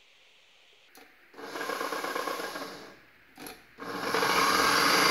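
KitchenAid Professional 5 Plus stand mixer's motor and gear train running with no load, switched on with a click of the speed lever about a second in, stopping, then switched on again near the end and running louder. It sounds rough, the sign of a chewed worm gear, a broken sleeve bearing and a cracked transmission housing.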